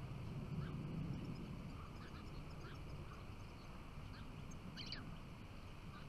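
European goldfinches calling with short, scattered chirps, one sharper call near the end, over a low steady rumble.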